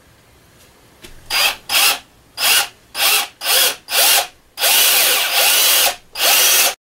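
Cordless drill boring a mounting hole into the mini mill's metal Z-axis column, triggered in short spurts: six brief bursts, then a longer run and one more short burst. The sound cuts off suddenly near the end.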